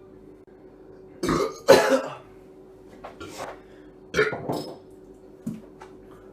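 A man belching repeatedly, bringing up gas from gulped lager. The two loudest belches come close together a little over a second in, then shorter rough ones follow around three and four seconds in, and a brief one comes near the end.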